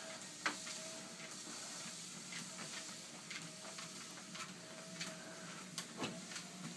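Home treadmill running with a steady low hum and a faint on-off whine, while a dog's paws and claws tick on the moving belt as it walks, two or three light clicks a second, with a sharper click about half a second in and another near the end.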